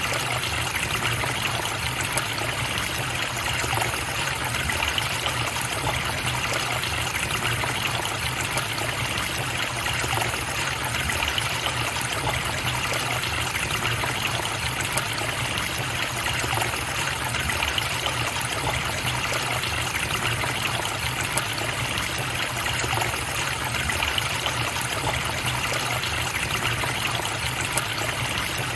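A forest stream flowing over stones, a steady trickling and splashing of water that never changes.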